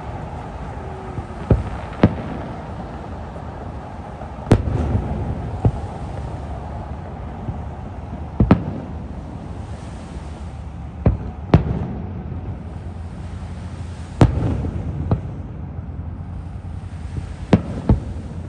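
Aerial fireworks shells bursting at a distance: about ten sharp bangs spread out every second or few, some in quick pairs, each trailed by a low rolling rumble.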